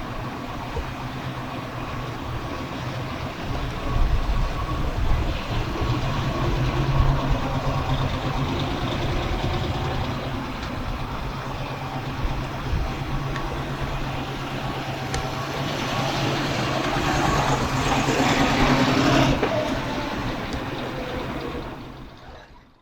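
A 1958 Chevrolet Corvette's 283 cubic inch small-block V8 running steadily, growing louder and fuller for a few seconds near the end before fading out.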